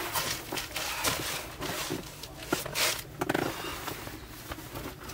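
A folding camp cot creaking and rustling as a person lies back on it and then gets up, with clothing rustling and irregular clicks and scuffs that die down near the end.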